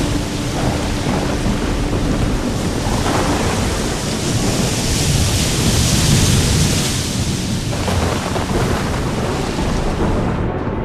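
Thunderstorm: steady heavy rain hiss over deep rolling thunder rumble, the hiss swelling louder around the middle.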